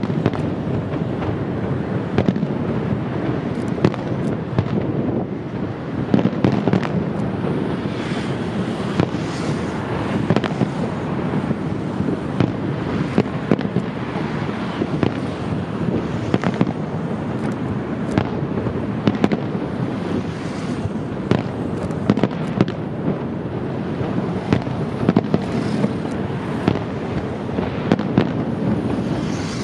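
Fireworks display: a continuous rumble of launches and bursts, studded with many sharp cracks and bangs.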